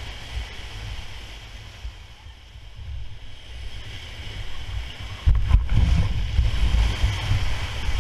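Whitewater rapids rushing around a paddle raft, with wind rumbling on the microphone. About five seconds in the rumble gets louder, with a couple of sharp knocks.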